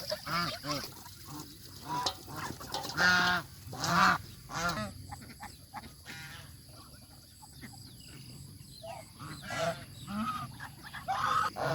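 Domestic geese honking in a run of short calls, loudest about three and four seconds in, with a lull in the middle before more honks near the end.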